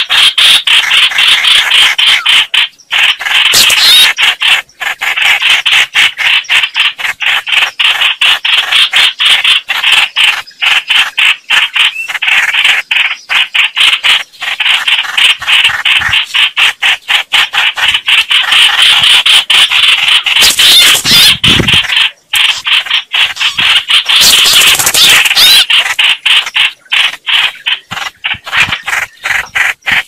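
Red-whiskered bulbuls giving fighting calls: a loud, dense, rapid chatter of harsh notes, with a few louder, shriller bursts.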